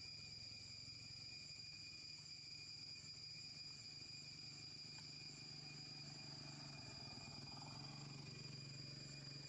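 Faint, steady insect drone: a constant high thin whine at a few fixed pitches, over a low background hum.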